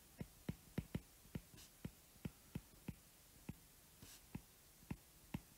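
Stylus tapping and clicking on a tablet's glass screen while handwriting: short, sharp, faint ticks at about three a second, unevenly spaced.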